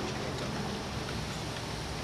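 Steady outdoor background noise: an even hiss with a low rumble underneath and no distinct event.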